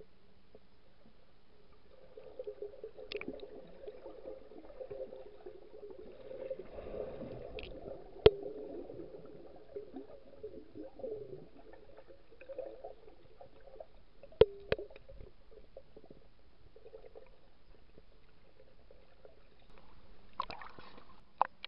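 Muffled water sloshing and gurgling heard through a submerged camera, with a few sharp clicks or knocks spread through.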